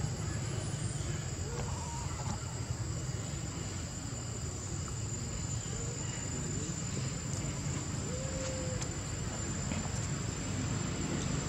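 Steady high-pitched insect drone over a steady low rumble of outdoor background noise.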